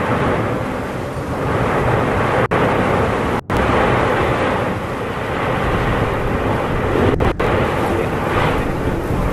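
The erupting Cumbre Vieja volcano on La Palma giving a loud, steady, rumbling roar with no distinct blasts. The sound drops out briefly a few times, about two and a half, three and a half and seven seconds in.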